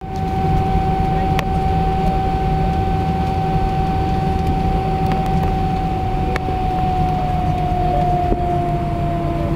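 Airbus A319 jet engines running at taxi power, heard inside the passenger cabin. A low rumble with a steady whine that sags slightly in pitch about seven seconds in, and a few faint clicks.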